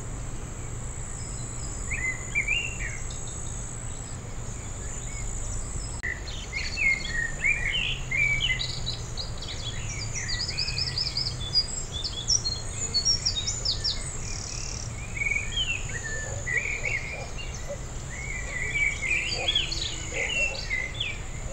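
A steady high insect buzz runs throughout, with small birds chirping and singing over it. The birdsong starts about two seconds in and gets busier after about six seconds. A low steady rumble lies underneath.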